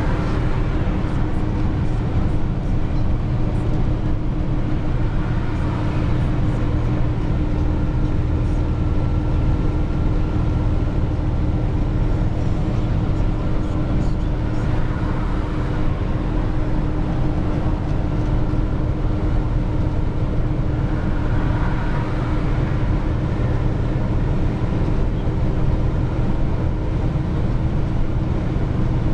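Four-axle dump truck running on the road, a steady low drone of engine and road noise with a constant hum.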